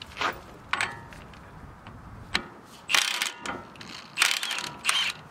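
Milwaukee Fuel cordless impact tool hammering on a 32 mm CV axle nut in several short bursts, the longest about three seconds in, loosening the nut.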